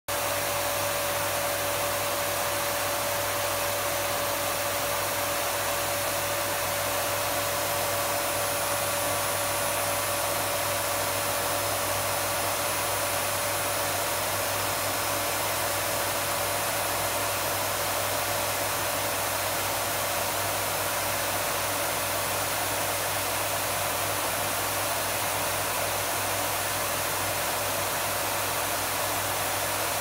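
Miele canister vacuum cleaner running steadily: an even rush of motor and airflow noise with a steady whine in it.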